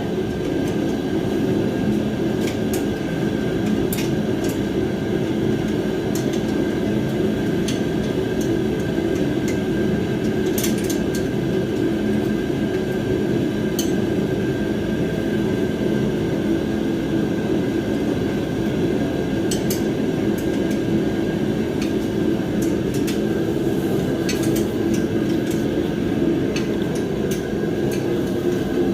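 Propane shop heater running with a steady, even noise, under scattered light metallic clinks from hand tools on the bolts of a steel welding cart being tightened.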